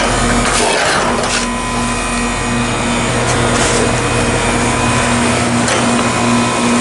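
Goodman GSH13 heat pump outdoor unit running steadily in heating mode, a continuous hum with a regular pulsing tone. A few short scraping strokes of snow being cleared sound over it, mostly in the first second or so and again around the middle.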